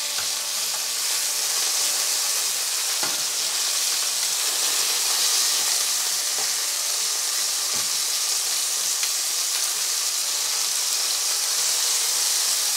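Lamb chops sizzling steadily in hot oil in a nonstick frying pan over medium heat. There are a couple of faint clicks as metal tongs turn the chops over.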